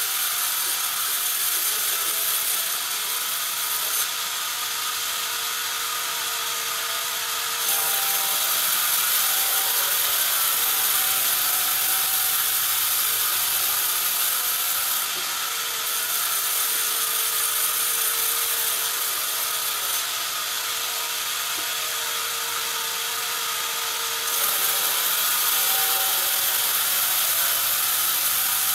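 Sawmill bandsaw running steadily as it slices thin boards from a squared timber. The sound swells in several long stretches of a few seconds each and eases a little between them.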